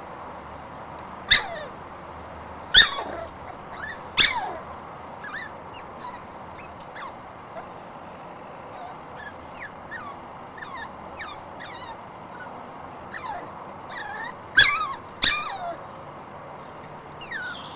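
Cavalier King Charles spaniel puppy giving short, high-pitched yelps that fall in pitch: three loud ones in the first few seconds, faint little whines between, and two more loud yelps close together near the end.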